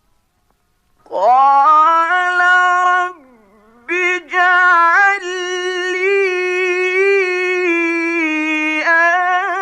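A male Quran reciter in the melodic mujawwad style, chanting long held notes with ornamented turns of pitch. The line breaks off briefly about three seconds in, then resumes in one long drawn-out phrase.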